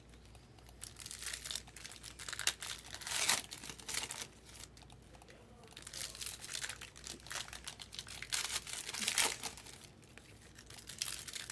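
Soft, scattered crinkling and rustling of foil card-pack wrappers being handled, in short irregular bursts with quiet gaps between.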